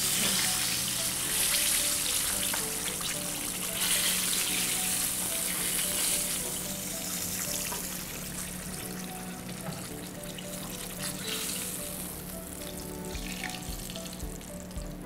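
Fish fillets frying in hot oil in a shallow pan: a steady crackling sizzle that dies down after about seven seconds as the pieces are lifted out.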